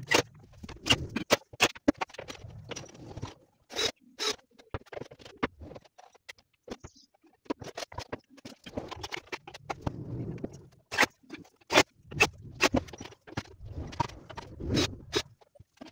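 Irregular sharp clicks and knocks of laminated plywood wardrobe doors and their metal hinges being handled, swung and fitted to the cabinet.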